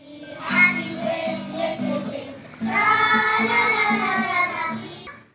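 Young children singing a song together, with steady low notes repeating beneath the voices; the singing is cut off suddenly at the end.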